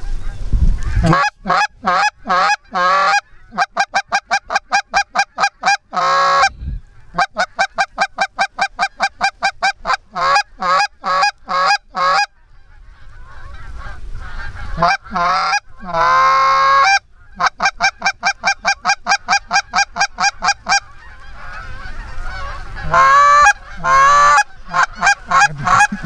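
Canada goose call blown by a hunter: long strings of quick, even clucks at about five notes a second, broken by a few drawn-out moans, calling to a flock of Canada geese overhead to bring it in.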